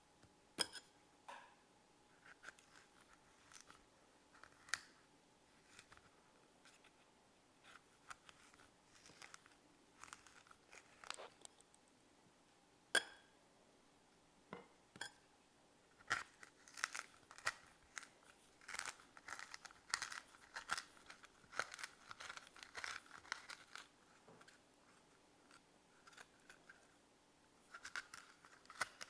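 A knife cutting and scraping raw quince: scattered sharp clicks and knocks at first, then from about halfway a quick run of short crunching cuts.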